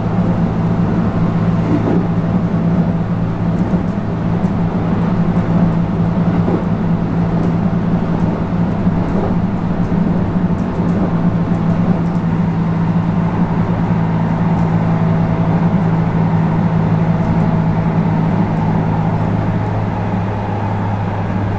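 Running noise inside a JR West 221 series electric train's motor car, with a steady low hum from its MT64 traction motors over the wheel and rail noise. Air-conditioning noise mixes in.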